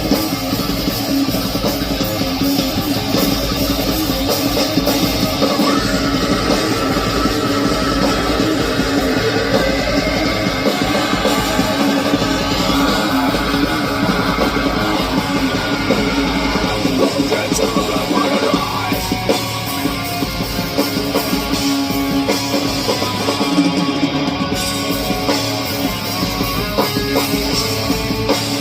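Rock band playing a loud, dense passage led by guitar.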